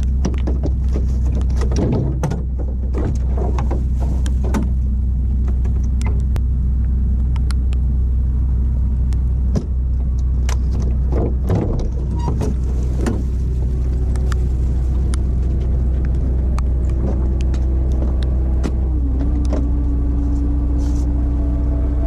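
Truck engine running steadily while the trailer's hydraulic tipper works to tip a load of mulch, with a steady whine that steps down in pitch about two-thirds of the way in. Scattered knocks and clatters sound over the engine.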